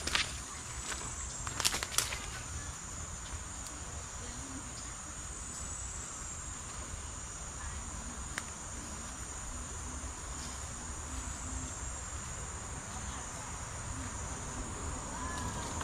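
Steady, high-pitched drone of forest insects, with a couple of sharp clicks about two seconds in.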